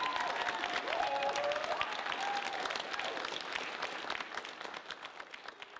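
Audience applauding, with a few voices whooping over the clapping in the first half; the applause fades away over the last couple of seconds.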